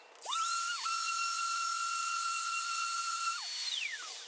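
Random orbit sander with vacuum dust extraction running on a hardwood board, heard as a high, pitched-up whine over a hiss because the footage is sped up. It winds up just after the start, dips briefly about a second in, and winds down near the end.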